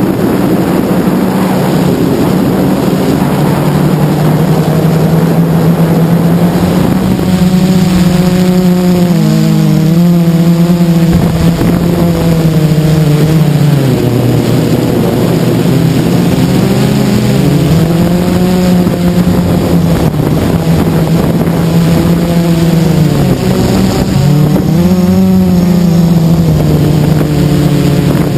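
Blade 350QX quadcopter's brushless motors and propellers buzzing loudly, picked up by the camera mounted on its frame. The pitch wavers up and down as the motor speeds change in flight, with rushing wind noise over the microphone, heavier in the first several seconds.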